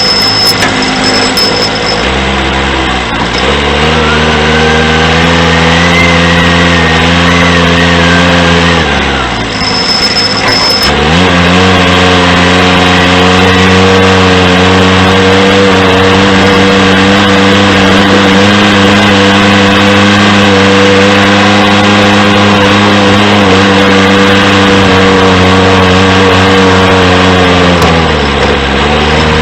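John Deere 210C backhoe loader's four-cylinder diesel engine running at working revs. It revs up about three seconds in, drops back about nine seconds in, picks up again two seconds later and holds steady, then dips briefly near the end.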